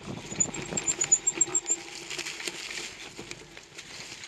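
Bicycle tyres rolling over a leaf-covered dirt trail, with a cluster of knocks and rattles over bumps in the first two seconds. A quick run of about ten high ticks starts about half a second in.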